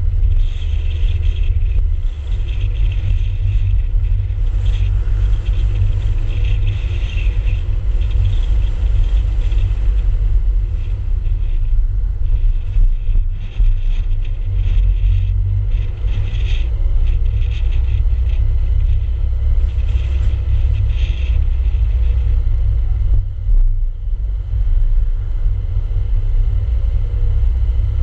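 Car driving along a paved street, heard as a loud, steady low rumble of road and driving noise on a car-mounted action camera.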